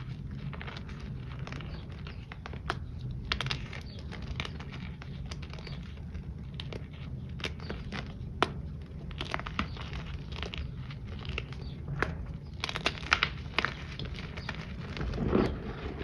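Hands squeezing and crumbling handmade reformed powder shapes, a steady string of dry crackles and crunches, with louder bursts of crunching about three seconds in and again from about nine to thirteen seconds. The shapes are a little crunchy. Near the end comes a soft low thump as the hands push into loose powder.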